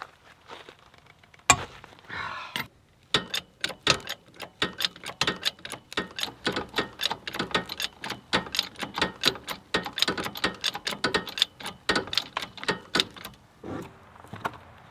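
Ratchet wrench clicking quickly and evenly, about four or five clicks a second, as lug nuts are run off a trailer wheel. There is a sharp knock about a second and a half in.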